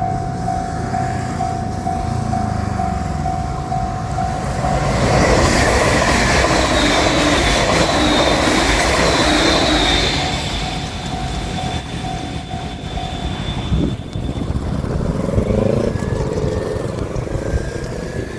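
JR Shikoku 8600 series limited express electric train passing over a level crossing, loudest from about five to ten seconds in, with a high wheel squeal over the rumble of the wheels. The crossing's warning bell rings steadily underneath and stops about thirteen seconds in.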